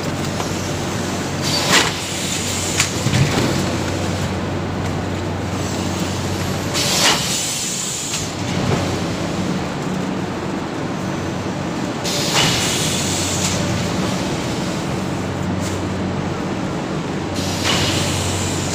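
Polystyrene foam plate forming machine running with a steady mechanical hum, with a short rushing burst about every five seconds.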